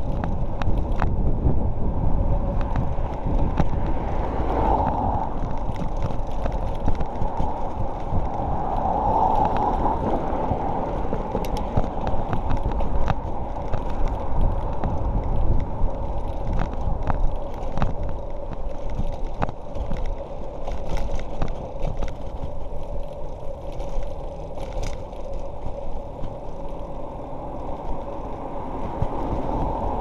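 Bicycle ride: a steady rumble of wind and road noise, with frequent sharp clicks and rattles from the bike as it runs over bumps.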